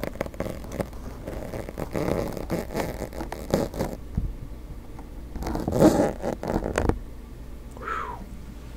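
Fingers scratching and rustling against a fuzzy microphone cover at close range as small white pieces stuck into it are worked loose and pulled out. The sound comes in uneven scratchy strokes with small clicks, loudest around six seconds in, and stops about seven seconds in.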